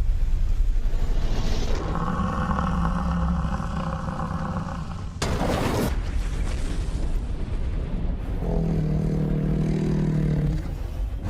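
Bison bulls bellowing in the rut: two long, deep roars, the first about two seconds in and lasting some three seconds, the second near the end lasting about two. There is a brief noisy rush between them and a steady low rumble under it all.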